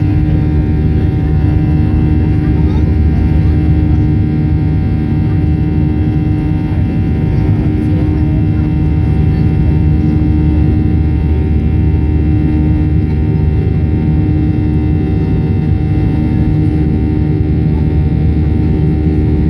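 Boeing 737-800's CFM56-7B turbofan engines at climb power after take-off, heard from inside the cabin over the wing: a steady rumble with several steady humming tones over it.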